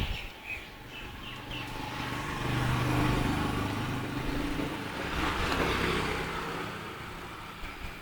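A motor vehicle passes on the road, its engine and road noise swelling to a peak about three seconds in, rising again around five to six seconds, then fading away.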